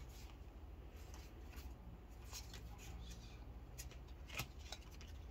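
Faint rustling and soft clicks of Yu-Gi-Oh trading cards being handled and slid through the fingers, with a sharper click a little past four seconds in, over a low steady hum.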